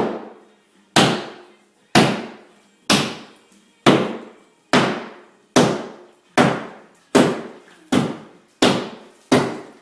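Hammer striking a sheetrock wall again and again, about a dozen blows roughly one a second, coming a little faster towards the end, each hit ringing out briefly.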